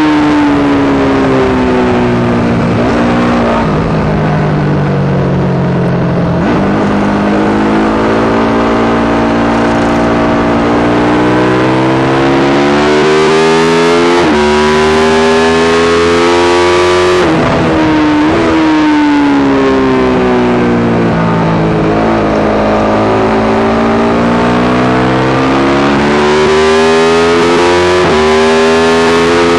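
Yamaha YZ450 single-cylinder four-stroke engine in a supermono race bike, revs climbing and falling repeatedly as it is ridden hard, with sudden pitch jumps at gear changes. The bike suffers a constant misfire that changes to carburettor settings, fuel system, ignition, coil and generator have not cured.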